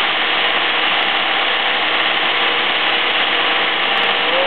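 Freshly rebuilt 2.2-litre pushrod four-cylinder engine of a 1996 Chevrolet Cavalier running steadily, with no revving.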